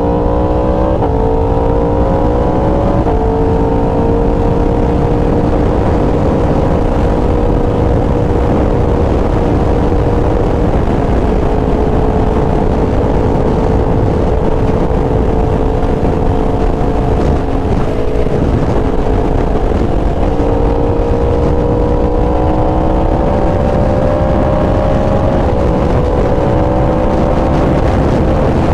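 Yamaha R1 inline-four engine pulling hard through two quick upshifts in the first few seconds, then holding a steady cruise under heavy wind and road rush. About two-thirds through it climbs in revs again and shifts up once more before settling.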